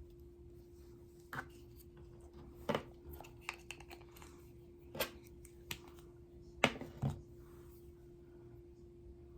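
Small objects being handled: scattered light clicks and taps, about seven over several seconds, the loudest pair near the middle, over a steady faint hum.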